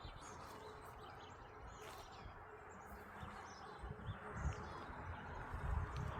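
Steady rush of a river with faint scattered bird chirps and occasional low rumbles.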